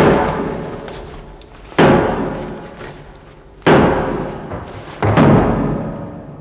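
Four heavy booming hits at uneven intervals, each starting suddenly and ringing out as it fades over a second or more.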